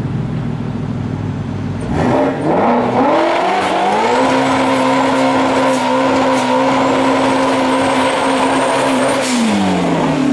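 Ford Shelby GT350's twin-turbocharged 5.2-litre Voodoo V8 doing a burnout. It runs low for about two seconds, then revs up and is held at high, steady revs while the rear tyres spin and squeal, and the revs drop near the end.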